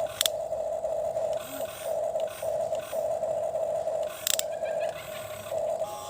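Small electric motor of a toy excavator whining steadily, dropping out briefly a few times as it runs in stretches, with two sharp plastic clicks, one just after the start and one a little past four seconds in.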